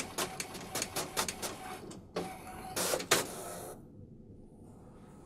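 Desktop printer printing a page and feeding it out: rapid mechanical clicking and whirring that stops about four seconds in.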